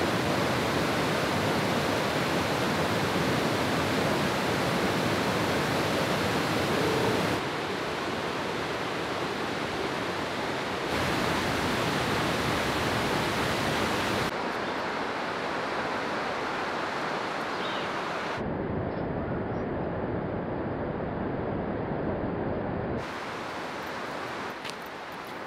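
Rushing water of river rapids and a waterfall, a steady hiss-like rush with no tune or rhythm. It is spliced from several clips, so its level and brightness jump abruptly every few seconds, and it turns quieter near the end.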